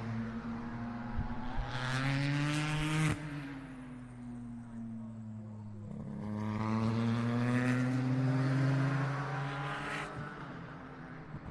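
GT Le Mans race car engines at speed on track: an engine note climbs in pitch and breaks off sharply about three seconds in, then sags, and a second climb runs from about six seconds until it falls away near the end.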